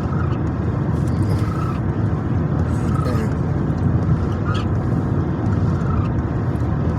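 Car interior noise while driving on a wet highway: a steady low rumble of tyres and engine, with a few faint short chirps every second or so.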